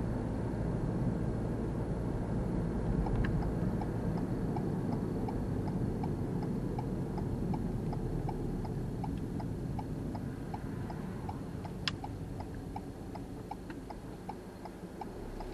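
Car's turn indicator ticking steadily, about two to three ticks a second, starting a few seconds in, over the low rumble of road and engine noise inside the cabin. A single sharp click comes near the end.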